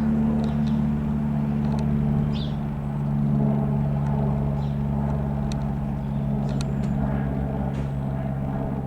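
Cessna F.172M Skyhawk's single piston engine and propeller droning steadily overhead, its pitch sinking slightly partway through.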